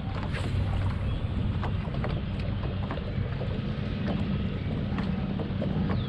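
Wind rumbling on the microphone over a bass boat on a choppy lake, with water lapping against the hull in scattered light ticks and slaps.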